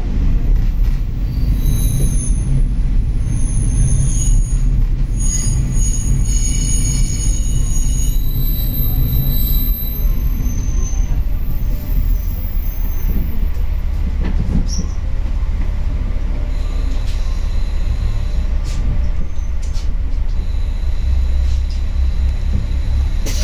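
Interior of a local diesel train running, a steady low rumble from the wheels and underfloor, with high-pitched squealing tones that come and go through the first half and fade out. A few sharp clicks follow in the second half.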